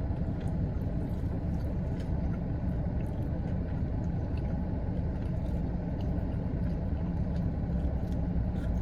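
Steady low rumble of a car's running engine heard inside the cabin, with faint small clicks of chewing and handling food scattered through it.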